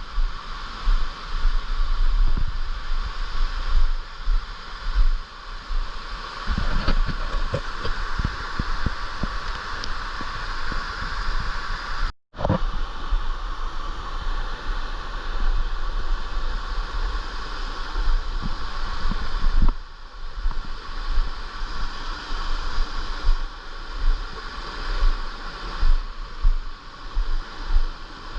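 Steady rush of running water in a mountain stream, with uneven low rumbling from wind buffeting the microphone. The sound drops out for an instant just past twelve seconds.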